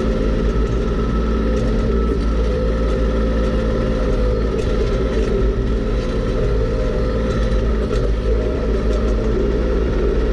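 Kubota B2601 compact tractor's three-cylinder diesel engine running steadily at a constant speed, heard close up from the hood.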